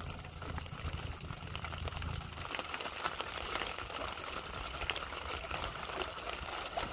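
Light drizzle pattering on the sea and the boat: a steady hiss of fine drops with many scattered ticks. A low rumble underneath fades out about two and a half seconds in.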